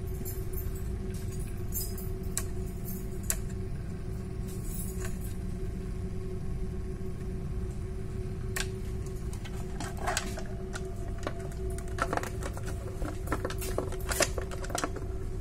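Steady low machinery hum with a faint steady tone. Over it come light plastic clicks and taps from a screwdriver and an actuator's cover being handled, a few at first and then a quick run of them over the last few seconds as the cover is fitted on.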